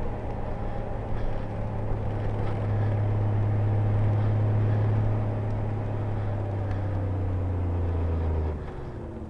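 Honda GL1500 Gold Wing's flat-six engine running at road speed, a steady low drone over wind and road noise. It is loudest a few seconds in and drops off sharply about a second before the end.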